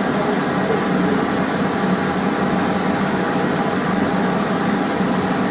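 Steady rushing hum of a fan, even in level with no knocks or breaks.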